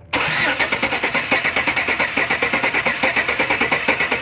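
Truck engine cranking over on its starter without firing, its valve cover removed, with a fast even pulsing that starts suddenly just after the start. It is being turned over to watch the pushrods and rockers for the cause of a dead cylinder 2.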